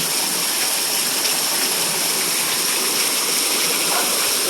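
Heavy rain pouring down in a steady hiss during a downpour that is flooding the street.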